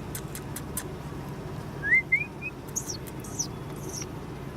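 A bird chirping: three quick rising chirps about two seconds in, then three thin, high calls that drop in pitch.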